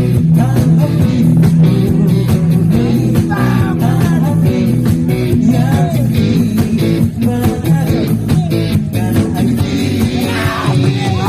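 Live rock band playing through amplifiers: electric guitars, bass guitar and drum kit, with a male singer on microphone coming in about three seconds in.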